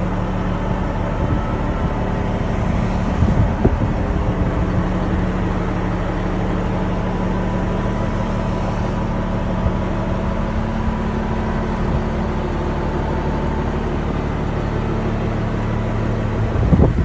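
Caterpillar 3406B inline-six diesel engine of a 1991 International Eagle dump truck idling steadily. A brief loud bump comes just before the end.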